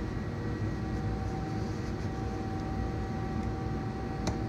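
Steady low background rumble with a faint steady hum. A single sharp click about four seconds in, as the cloth-wrapped tip of a flathead screwdriver is set against the plastic grab-handle cover of the car's door panel.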